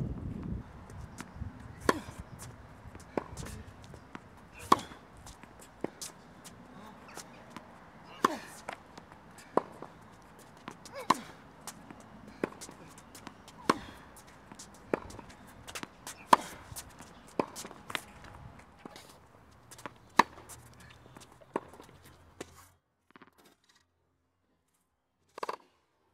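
A tennis rally on a hard court: a sharp pop of the ball off the racquet strings, or off the court, about every 1.3 seconds. The sound drops out near the end, then comes one more hit.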